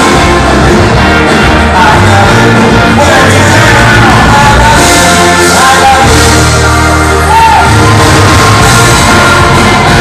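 Live rock band playing with a singer, very loud and close to distortion on a phone microphone, with some shouts.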